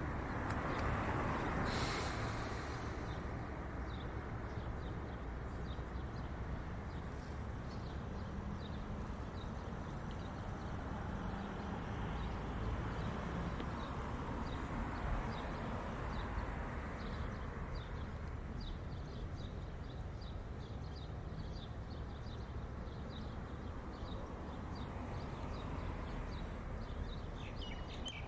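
Road traffic on a multi-lane street, a steady rush of cars and trucks that swells as vehicles pass, with small birds chirping over it.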